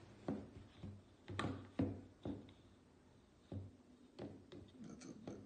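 Red measuring cup scooping flour in a clear plastic flour container, knocking and tapping against its sides: about ten irregular light knocks, the loudest around two seconds in.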